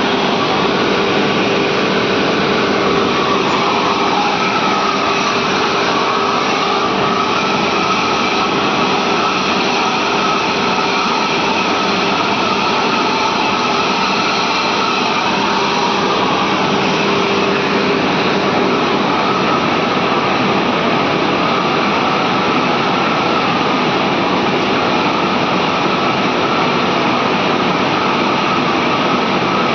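Steady, loud machinery noise of a running steam boiler plant: a constant rushing drone with a few faint steady hums in it, unchanging throughout.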